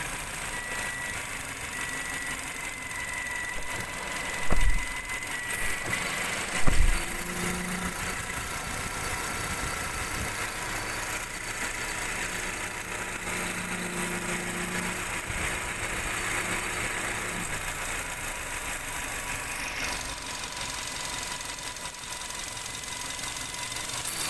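Nissan Grand Livina engine idling with the AC compressor engaged, a jingling rattle coming from the compressor's magnetic clutch, whose rubber damper has worn away. Two dull thumps stand out about four and a half and seven seconds in.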